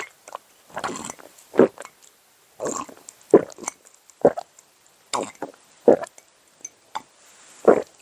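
A person gulping down gorosoe maple sap from a mug: a series of short swallows, roughly one or two a second.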